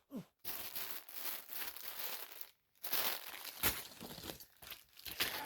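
Packaging crinkling and tearing in stops and starts as an item is unwrapped by hand, with a short pause a little before the middle.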